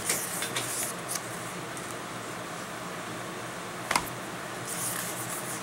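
Pages of a Blu-ray digibook being handled and turned, with short rustles of paper and one sharp click about four seconds in, over a steady low hum.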